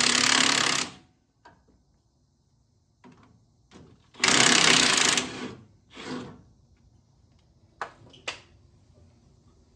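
Impact wrench hammering on a nut in bursts: a long run that stops about a second in, a few short blips, a louder burst of about a second in the middle, then two sharp metallic clicks near the end.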